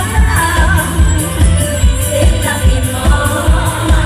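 Isan concert band music played loud through the stage PA: singing over a heavy, steady beat of about two bass hits a second.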